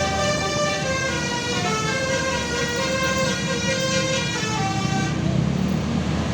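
Bus telolet horn, a set of electric multi-tone trumpets, playing a melody of held notes that step up and down in pitch. It stops about five seconds in, leaving a low rumble.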